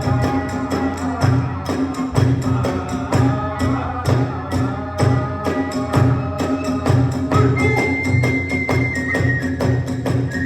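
Kagura hayashi ensemble playing: steady beats on a large taiko drum, bright clashing hand cymbals (tebyoshi) on the beat, and a bamboo flute, which holds one long high note near the end.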